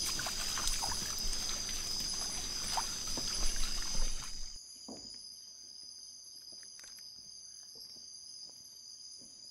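Night-time rainforest insects chirring in steady high tones. For about the first half a louder rushing noise with scattered clicks lies over them, then it cuts off abruptly, leaving only the insects.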